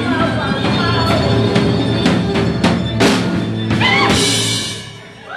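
Live rock band playing the end of a song: a string of drum hits over a held bass note, then a cymbal crash about four seconds in before the sound drops away.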